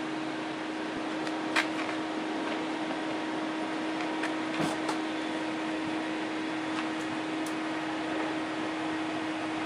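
A steady mechanical hum holding one constant low tone over a background hiss, with a few faint clicks.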